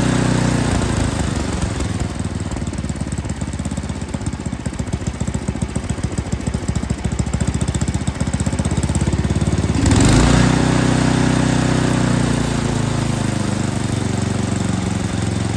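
Yard King snowblower's small gas engine running while its carburetor's low-speed mixture screw is adjusted. For several seconds it runs rough and uneven, then about ten seconds in it picks up speed and runs steadier, as the mixture comes closer to right.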